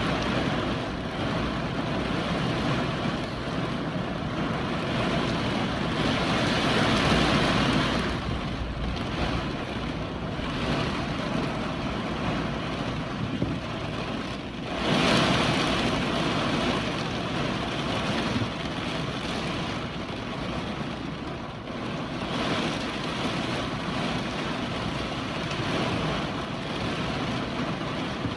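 Strong hurricane wind blowing in gusts, rushing and buffeting the microphone, with the loudest surges near the start, about seven seconds in and about fifteen seconds in.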